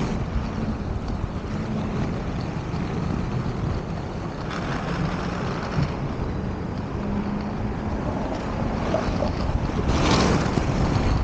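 Inline skate wheels rolling over pavement, a steady rumble mixed with wind buffeting the microphone, with a louder rough burst near the end.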